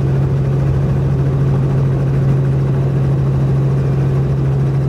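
Helicopter droning steadily, heard from inside the cabin in flight, with a strong low hum that holds one pitch throughout.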